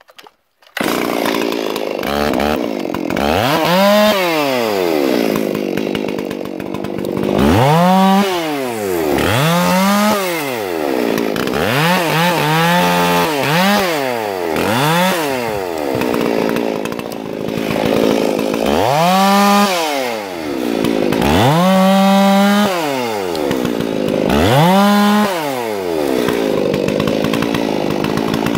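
Chainsaw running, its engine pitch rising and falling again and again as the throttle is opened and released, about a dozen times. It starts abruptly just under a second in.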